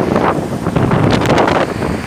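Storm wind gusting hard against the microphone: a loud rushing noise that swells and dips in uneven gusts.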